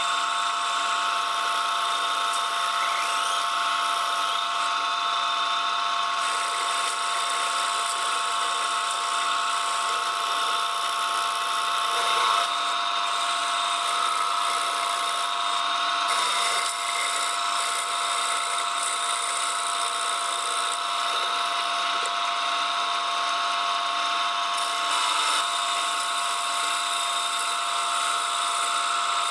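Metal lathe running steadily with a steady whine, its cutting tool machining the centre hole of a spinning glued bamboo-parquet disc and throwing off shavings.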